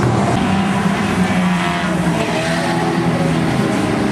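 Racing BriSCA F1 stock cars, their engines running hard together in a steady, loud drone that shifts a little in pitch.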